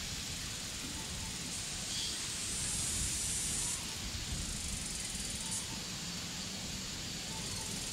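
Outdoor woodland ambience: a breeze through grass and trees with wind buffeting the microphone, over a steady distant rushing hum like a far-off jet, which comes from the hospital. Faint short bird calls repeat every second or so, and a high hiss swells twice for a second or two.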